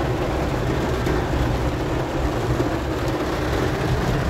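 Heavy rain falling on a car's roof and windshield, heard from inside the moving car, over a steady low rumble from the car.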